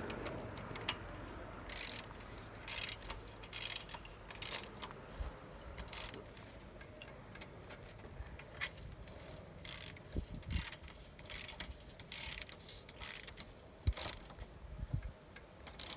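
Socket wrench ratchet clicking in short runs, roughly one every half-second to a second, as the locking nuts on a trencher's chain adjuster are wound tight.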